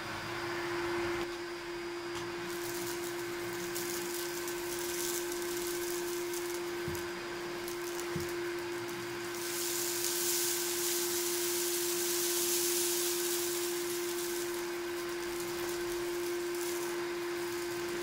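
1982 Hitachi CV-7405 Stowaway Mk1 cylinder vacuum cleaner running steadily: an even motor whine over a rush of air, the airy hiss growing louder for a few seconds around the middle. Two soft knocks are heard near the middle.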